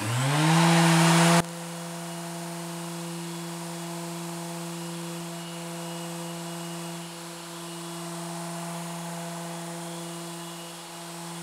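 Mirka Deros electric random-orbit sander spinning up and then running steadily with a 180-grit abrasive over a cast-iron table saw top. A loud hiss for the first second and a half drops off suddenly, leaving a steady hum.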